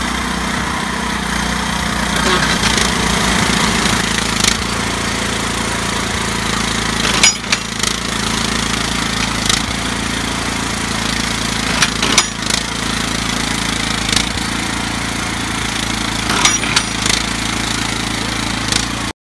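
Small engine of a Pandrol CD200 rail clip driving machine running steadily, with sharp metal clanks every few seconds as the machine drives e-clips onto the rail; the three loudest come about five seconds apart.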